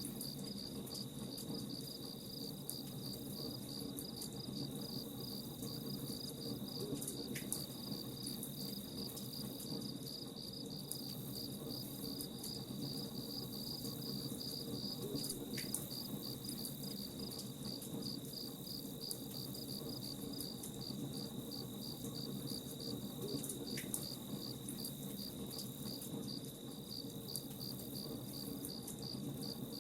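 Crickets chirping in a steady, fast pulsing trill over a campfire crackling, with scattered small pops and a low rumble underneath.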